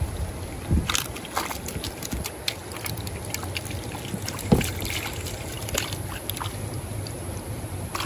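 Running creek water with scattered splashes and sharp clicks, and dull thumps about one second in and again about four and a half seconds in, the second the loudest.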